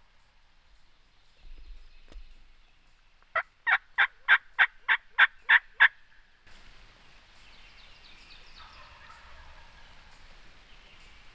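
A run of about nine loud, evenly spaced turkey yelps, three to four a second, starting about three seconds in. Faint songbirds chirp through the rest.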